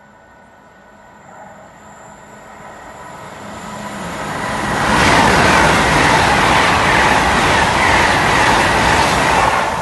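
Great Western Railway Hitachi Intercity Express Train running through the station at speed. It grows from a faint approach to a loud rush of wheels and air about five seconds in, then eases just at the end.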